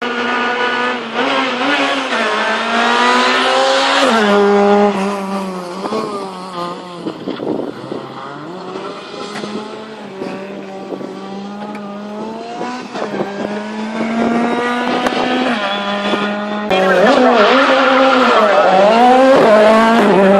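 Rally car engines revving hard, their pitch repeatedly climbing and dropping as they accelerate and lift off, with some tyre squeal. The engines sound more distant in the middle and loud and close near the end.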